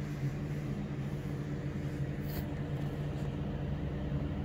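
Steady low mechanical hum with a faint click about two seconds in.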